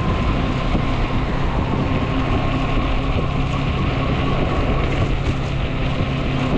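Ecotric 20-inch folding fat-tire e-bike under way: a steady rush of fat-tyre and wind noise with a low, even hum running under it.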